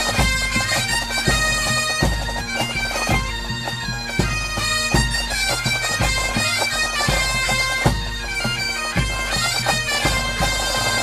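Bagpipe music with a steady drone under the melody and regular drum beats.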